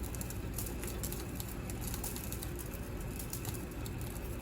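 Butter melting in hot olive oil in a frying pan on medium-high heat, sizzling with a steady fine crackle over a constant low hum.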